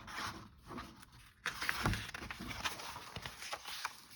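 Pages of a picture book being turned and handled: paper rustling with a few light knocks, loudest about two seconds in.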